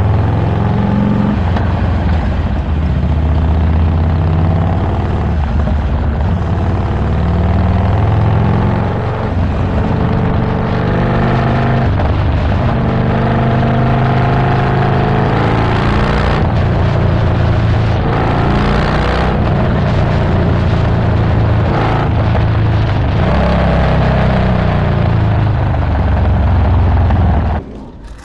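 Harley-Davidson Iron 1200's Stage 1-tuned V-twin running hard under way, its pitch rising and falling as the revs change. The sound cuts off suddenly near the end.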